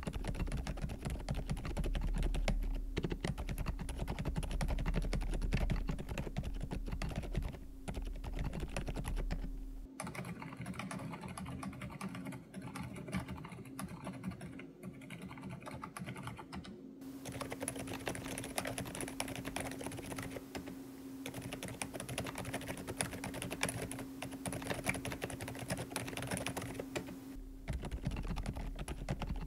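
Typing on a QSENN DT35 87 mechanical keyboard with its stock Otemu Lime V3 silent tactile switches, polycarbonate plate, full foam dampening and PBT keycaps: a continuous run of rapid keystrokes.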